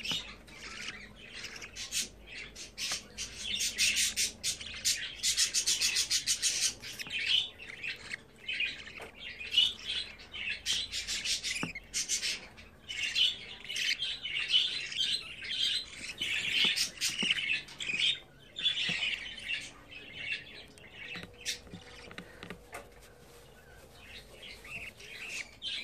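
Budgerigar chick's food-begging calls while being syringe-fed: rapid, raspy high-pitched chirping in quick runs, densest a few seconds in and thinning out near the end.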